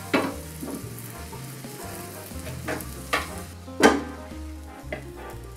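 Rolled egg omelette sizzling in a copper tamagoyaki pan over a gas flame, with a few sharp knocks as the pan is handled. The loudest knock comes near four seconds in, as the omelette is tipped out onto a wooden board.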